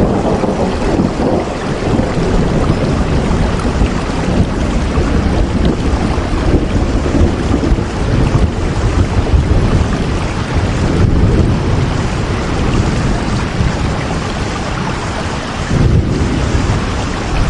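Heavy, steady rain with a deep rumble of thunder underneath, swelling briefly near the end.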